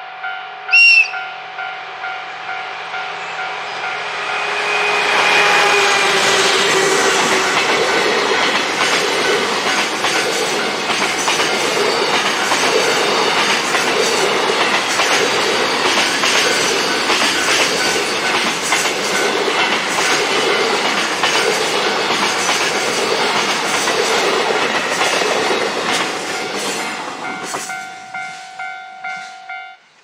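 Level-crossing warning bells ringing about twice a second, and a short high horn toot from a DF200 diesel locomotive about a second in. Then a long container freight train passes close by, its wheels clattering over the rail joints for about twenty seconds. The bells are heard again as the train goes by.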